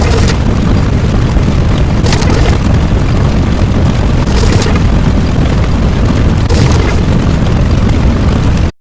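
Loud, continuous rumbling boom sound effect, with a crackling burst about every two seconds; it cuts off abruptly near the end.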